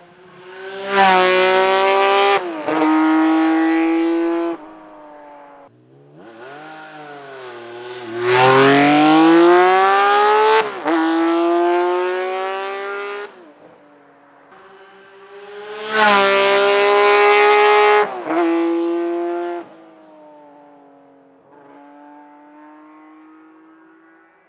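Honda CBX 1000's air-cooled inline-six engine, breathing through a Pipemasters six-into-six exhaust, revved hard three times. Each rev rises in pitch and holds for a couple of seconds, then drops back to a lighter idle, which runs on near the end.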